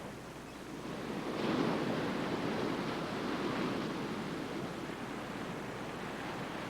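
Ocean surf: a steady rush of waves washing in, swelling about a second and a half in and then holding.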